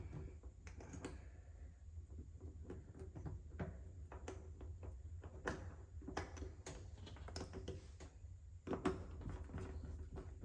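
Small clicks and taps of hand-fitting a cam lock's tumbler and latch plate into an RV baggage door, with a louder knock near the end, over a steady low hum.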